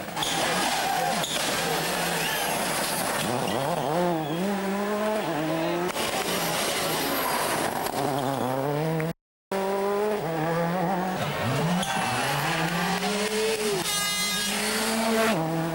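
World Rally Car's turbocharged engine revving hard on a rally stage, its pitch repeatedly climbing and dropping sharply through gear changes. The sound cuts out briefly about nine seconds in, then the engine picks up again.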